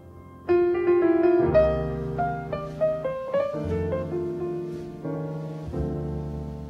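Background piano music: a slow melody over low sustained chords.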